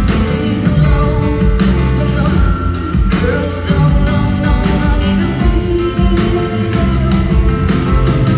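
Loud live pop-rock music from a band, with a singing voice over sustained instruments and a strong low end.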